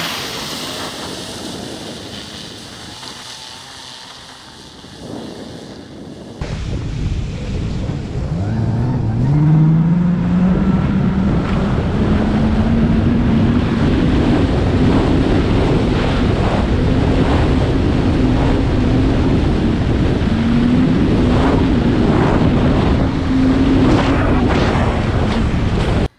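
Taiga Nomad electric snowmobile riding at speed, with heavy wind buffeting the microphone. For the first six seconds a thin high whine sits over a fading rush. Then the rush jumps suddenly louder, and a low drive hum climbs in pitch as the sled picks up speed and then holds steady.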